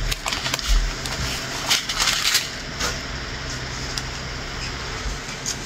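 Plastic packaging of a diamond painting kit crinkling and rustling as it is handled, with a few sharper crackles about two seconds in.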